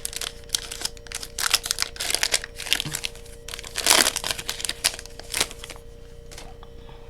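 Foil wrapper of a Pokémon card booster pack crinkling and tearing as it is opened, with the loudest crackle about four seconds in; it dies down near the end.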